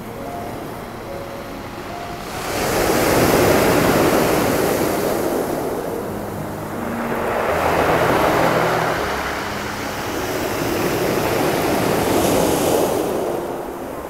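Sea waves breaking and washing up a pebble beach in a rough sea: three slow surges, each swelling up and then fading back.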